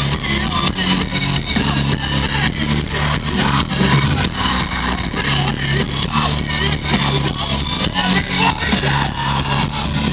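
Live rock band playing loud through a festival stage PA: a steady drum beat with heavy bass and guitar.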